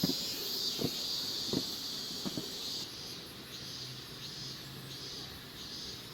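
Cicadas singing: a steady, shrill buzz that changes about three seconds in to a pulsing chorus, about one and a half pulses a second. A few soft low thuds sound in the first half.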